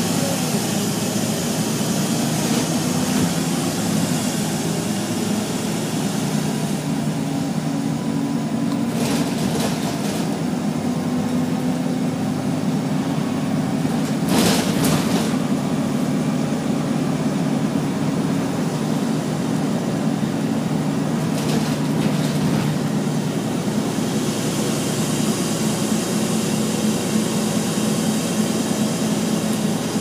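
Wright Eclipse Urban Volvo single-deck bus heard from inside while under way: its diesel engine and cooling fan give a steady drone over road noise and hiss. There is one brief knock or rattle about halfway through.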